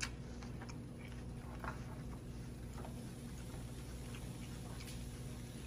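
Faint, scattered taps and ticks as raw chicken pieces are handled on a plastic cutting board and set into a frying pan, over a steady low hum.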